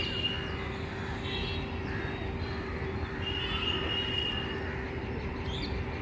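Steady low rumble of city traffic under an open-air hum, with birds calling now and then above it: a short call at the start, another about a second in, and a longer high call held for about a second past the middle.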